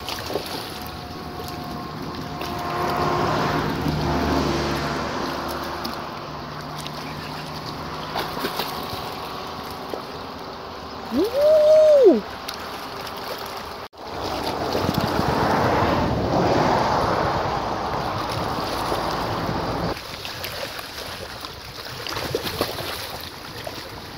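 Wind buffeting the microphone and water lapping against a rocky shoreline, with a faint steady hum in the first few seconds. About twelve seconds in comes one loud, short whistle-like tone that rises and then falls.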